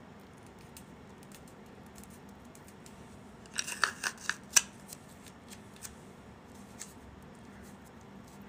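A quick run of sharp clicks and crackles from adhesive tape being handled while seeds are taped onto a patient's palm. It comes about three and a half seconds in, lasts about a second and ends on the loudest click, with a few faint ticks after.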